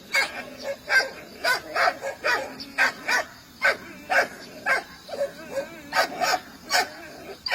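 A dog barking over and over in short, evenly spaced barks, about two a second.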